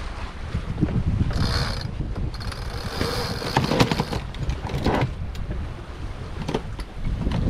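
A rope hauled hand over hand through a sailboat's blocks, running in several bursts with clicking and rattling from the hardware, over a steady low rush of wind and sea.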